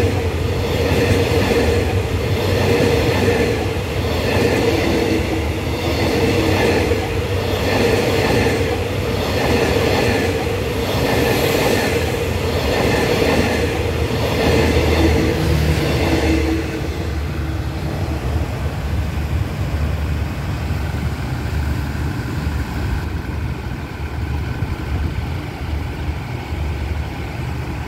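Express train's passenger coaches rolling past close by, the wheels clattering in an even rhythm about once a second over a steady hum. About 17 seconds in the last coach goes by and the clatter stops, leaving a lower, quieter steady rumble.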